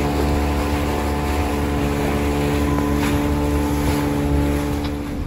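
Boat's outboard motor running at a steady cruising speed, a constant engine drone, with water rushing past the hull.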